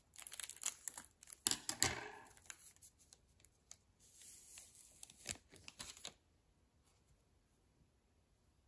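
Scissors snipping through a trading-card pack's wrapper, with the wrapper crinkling, then the cards being slid out of the pack; the handling stops about six seconds in.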